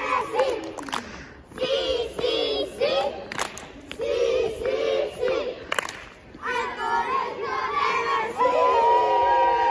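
A group of children chanting a rhyme together in short rhythmic phrases, punctuated by a few sharp hits. Near the end many voices overlap and rise into a loud, long held shout.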